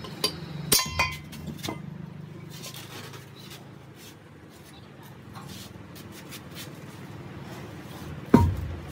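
Metal parts and tools clinking and knocking during work on a truck differential: a few sharp clinks in the first two seconds, one of them ringing, then a single loud ringing metal knock near the end.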